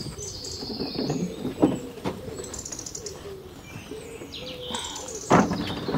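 Garden birds chirping, with a few knocks and clunks from the lawn mower being handled and lifted onto a glass table; the loudest clunks come near the end.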